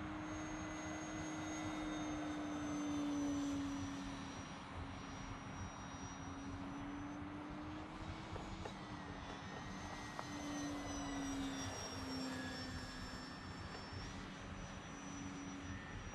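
Electric motor and propeller of a Multiplex AcroMaster Pro RC plane whining in flight, its pitch wavering up and down as it manoeuvres, loudest about three seconds in.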